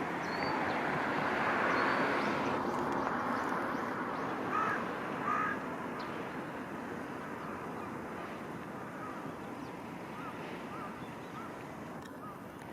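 Two short, loud bird calls about four and a half and five and a half seconds in, over a steady outdoor background noise, with faint short chirps from small birds near the start and again near the end.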